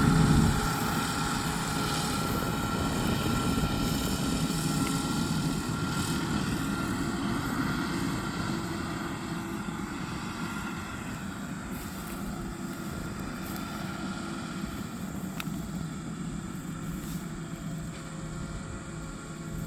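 Yanmar YH6115 six-row rice combine harvester running steadily, its diesel engine and threshing machinery giving a continuous mechanical drone that grows gradually fainter.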